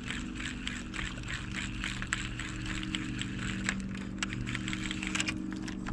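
Fishing reel being cranked to retrieve a lure: rapid ticking over a steady low hum.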